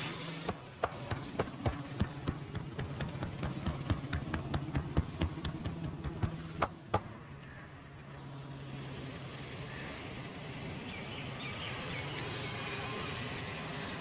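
Fast run of hand strikes of a percussive head and body massage, several a second for about six seconds, ending with two louder claps. Afterwards only a steady low hum remains.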